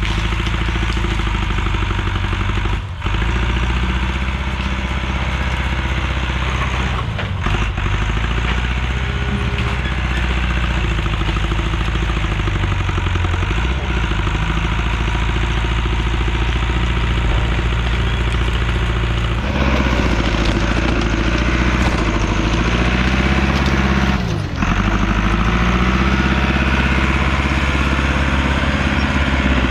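Heavy diesel engine of land-clearing equipment running under load, its pitch rising and falling as the machine works, with a few brief dips.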